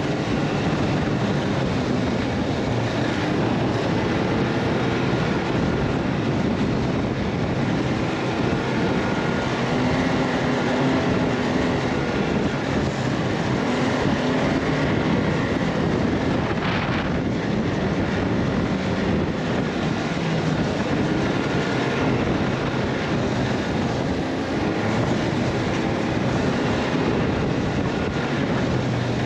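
A vehicle's engine running steadily under way, its pitch drifting up and down with speed, under a constant rush of wind and road noise. A short sharp click about 17 seconds in.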